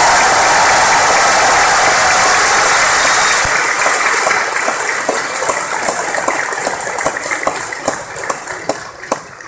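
Large audience applauding in a big hall: dense, steady clapping for the first three to four seconds, then thinning into scattered single claps that die away near the end.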